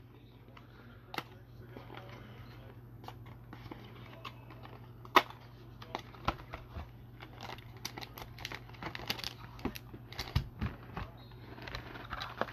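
Cardboard box of 2021 Topps Inception baseball cards being pulled open by hand: irregular rustling, tearing and clicking of the cardboard, with one sharp snap about five seconds in.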